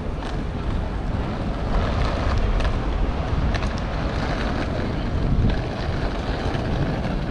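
Busy city-street ambience: steady traffic noise from buses and cars, with a low rumble and a few faint ticks.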